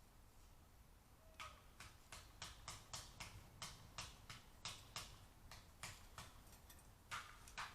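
A bird pecking at the feeder: an irregular run of faint, sharp taps, about three a second, starting about a second and a half in.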